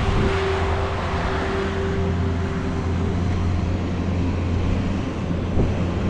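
A vehicle engine running steadily with a low drone, and a hiss over it in the first couple of seconds.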